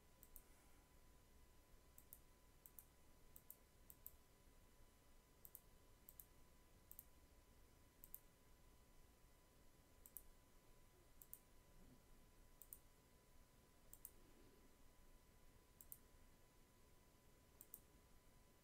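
Faint computer mouse clicks, single and irregularly spaced about a second apart, as anchor points are placed one by one with Photoshop's pen tool, over a faint steady hum.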